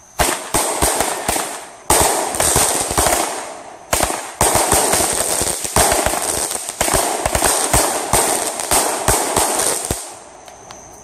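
Consumer aerial fireworks going off: a rapid run of sharp bangs and dense crackling from the bursting stars, which dies away about ten seconds in.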